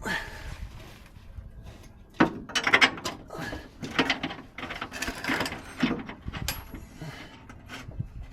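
Tools and car parts being handled during reassembly: an irregular run of clicks, knocks and rattles, the loudest a few knocks about two to three seconds in.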